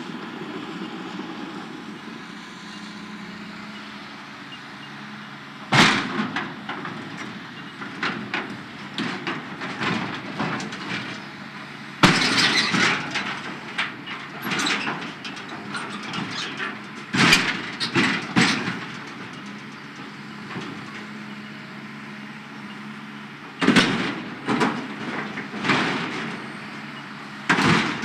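A Hitachi hydraulic excavator's diesel engine running steadily while its arm crushes and tears down a sheet-metal structure. Loud crunching and clattering of buckling metal comes in several bursts from about six seconds in.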